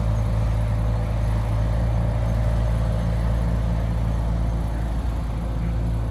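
A heavy-vehicle diesel engine running steadily, low and even throughout.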